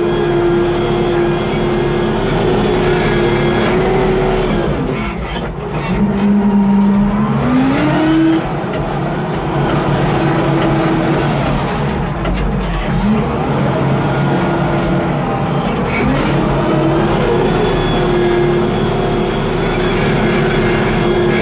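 Case W20E wheel loader's diesel engine running under load while the bucket pushes earth. Its pitch drops sharply about five seconds in and climbs back near eight seconds, with shorter dips around twelve and sixteen seconds.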